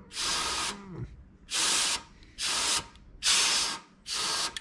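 Compressed air hissing from an air blow gun in five short blasts of about half a second each, pressed to an oil-line fitting on a Henderson motorcycle engine to pressure-test the oil line for air leaks.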